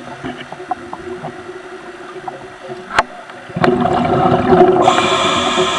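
Underwater camera audio: scattered small clicks and crackles, then about three and a half seconds in a loud gurgling rumble of bubbles, typical of a scuba diver exhaling through a regulator, with a hiss joining it about a second later.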